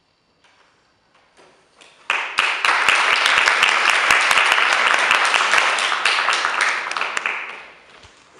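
Small audience applauding: a few scattered claps, then full applause from about two seconds in, fading out near the end.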